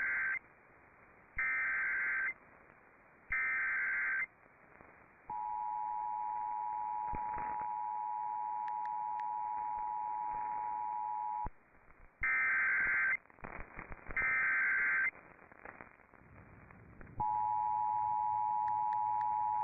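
Emergency Alert System tones on a radio broadcast: three short SAME digital header bursts, each a harsh data screech about a second long, then the steady two-tone attention signal held for about six seconds. After a brief gap come two more data bursts, and the two-tone attention signal starts again about two seconds before the end, announcing a severe thunderstorm warning about to be read.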